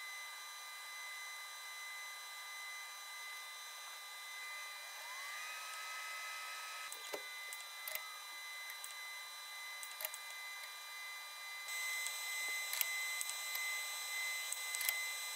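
Faint running sounds of a homemade laser metal 3D printer: a steady high whine, with a motor whine that rises about five seconds in, holds for a couple of seconds and then falls away, and a few scattered sharp clicks.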